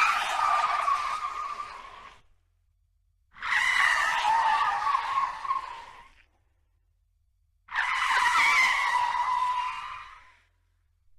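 Three car tyre skids, one after another: each is a tyre screech with a squealing tone that starts suddenly, lasts about two and a half seconds and fades out, with about a second of silence between them.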